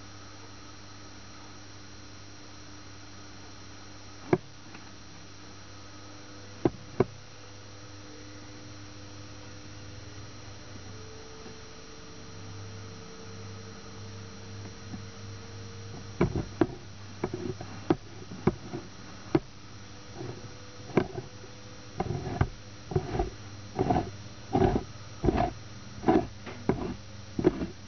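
A steady low electrical hum with a few sharp clicks, then, from a little past halfway, a run of irregular short knocks or taps with a brief ringing tone, about one or two a second.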